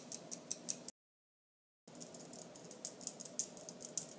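Handheld flour sifter working over a glass bowl as flour is sifted through it: quick, regular clicking, about five clicks a second. It breaks off into silence for about a second, then resumes as softer, uneven ticking and light scratching.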